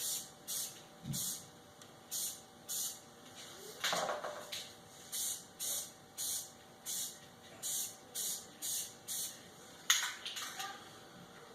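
Aerosol spray paint can hissing in many short bursts, about two a second with brief pauses between, as a light coat is laid on metal drill press parts. A couple of knocks of handling are heard, one about a second in and a sharper one near the end.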